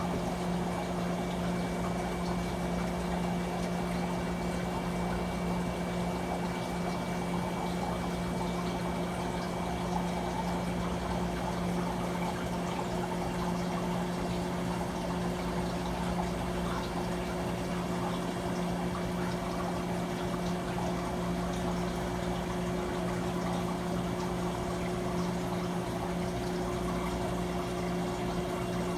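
Manitowoc commercial ice machine running: a steady hum under a constant sound of running, trickling water from its water circulation.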